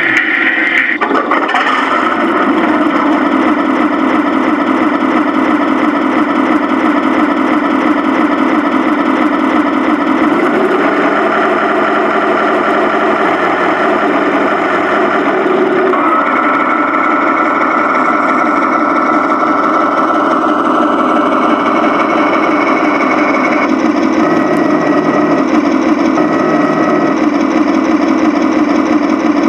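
1/16 Tamiya RC tank's onboard sound unit playing a simulated tank engine through its small speaker. It starts up about two seconds in, then drones steadily, and its pitch and tone step abruptly a few times as the throttle changes.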